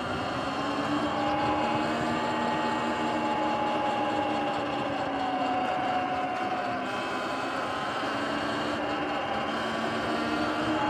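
Sur-Ron electric dirt bike riding at cruising speed: the electric motor and chain drive whine over a steady rush of tyre and wind noise. The whine sinks slightly in pitch, drops out briefly about two-thirds through, then returns.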